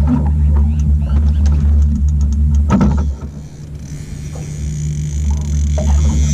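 Small boat's 60 outboard motor running steadily at trolling speed. A quick run of clicks comes about two seconds in, the hum dips briefly just after three seconds, and a high hiss rises from about four seconds in.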